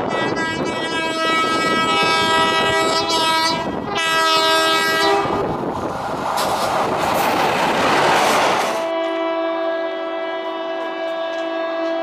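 Indian Railways electric locomotive horns blowing long blasts over the rumble of a passing train, the horn falling in pitch a few seconds in. The rushing and wheel clatter of the train then take over, and about nine seconds in a clean, steady multi-note horn blast from another locomotive begins.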